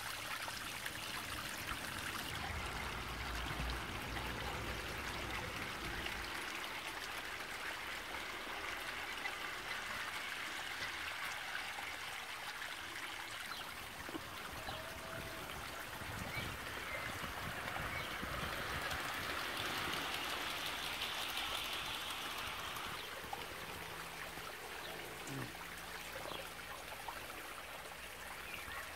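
Running water trickling steadily, a continuous splashing flow that swells slightly about two-thirds of the way through.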